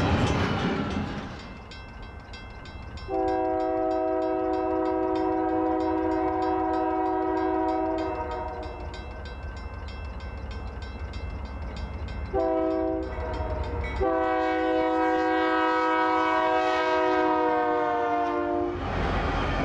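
Union Pacific freight locomotive's air horn sounding at a grade crossing: a long blast, a short blast, then another long blast that drops slightly in pitch as the engine passes, over the crossing bell ringing steadily. Near the end the rumble of the locomotive and cars going by takes over.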